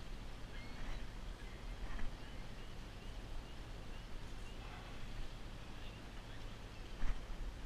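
A mooring line being tied off around a metal dock cleat: soft rope handling with a few light knocks, the sharpest near the end, over a low steady rumble. A run of short, high, rising chirps, about two a second, sounds through the first half.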